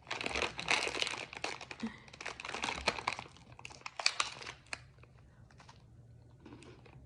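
Crinkling plastic snack wrapper being opened and handled, with dense crackling for about five seconds that thins to a few faint rustles near the end.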